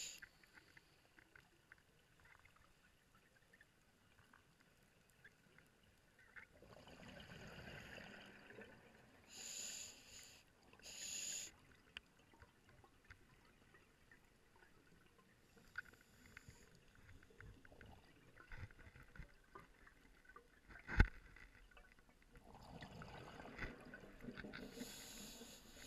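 Scuba diver breathing through a regulator: short hissing inhalations about ten and eleven seconds in, and bubbling exhalations around seven seconds in and again near the end. A single sharp click about 21 seconds in.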